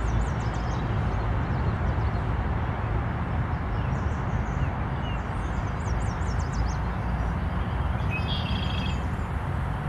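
Steady outdoor rumble and hiss, with small birds chirping over it: runs of quick high chirps twice and a short buzzy call near the end.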